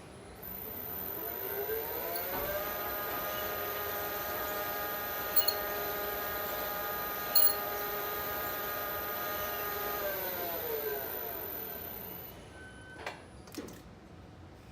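Elevator drive motor whining as the lift runs. The pitch rises as the car speeds up, holds steady for about eight seconds, then falls as the car slows to a stop. A couple of sharp clicks follow near the end.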